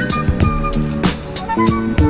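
Background music with a steady beat and a melodic lead line.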